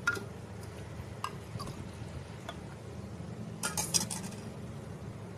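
A steel ladle clinking against a bowl and a drinking glass as a drink is ladled into the glass. It gives a few light, separate clinks, then a quick cluster of them about four seconds in.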